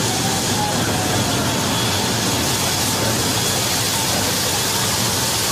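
Steady roar of wind and jet engine noise inside a C-17 Globemaster III's cargo hold in flight, with the paratroop door open for a static-line jump.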